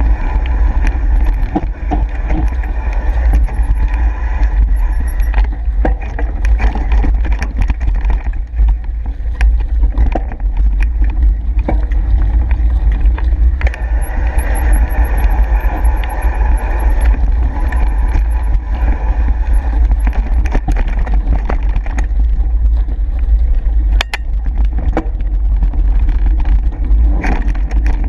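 Mountain bike ridden over dirt singletrack, heard from a bike-mounted camera. Steady wind buffeting on the microphone and tyre rumble over the dirt, with frequent sharp clicks and knocks as the bike rattles over bumps.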